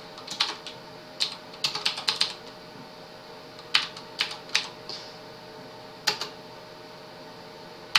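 Computer keyboard keystrokes typing a short command, in irregular bursts of clicks with pauses between them. The typing stops about six and a half seconds in.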